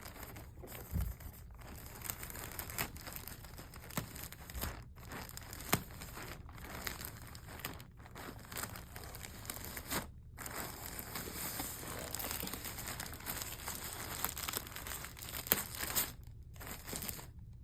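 Plastic wrapping crinkling and rustling as hands pull it off a folded cardigan, with a few brief pauses.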